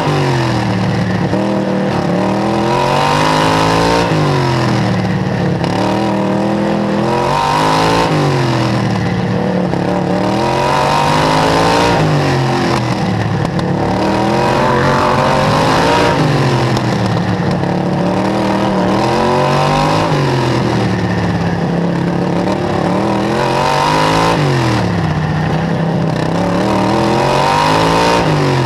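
Outlaw dirt kart's engine heard from on board, revving high on the straights and dropping off for each turn, so the pitch falls and climbs back about every four seconds, lap after lap.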